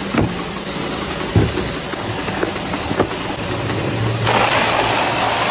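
An engine hums steadily, with a few sharp knocks. About four seconds in, a loud hiss sets in.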